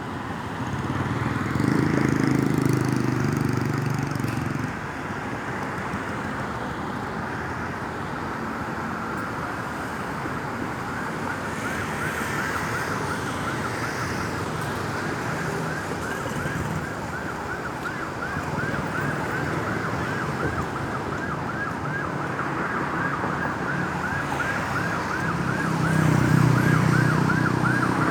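Ambulance siren in a fast yelp, its pitch rising and falling several times a second and growing clearer partway through. Traffic noise runs underneath, with a louder low engine rumble near the start and again near the end.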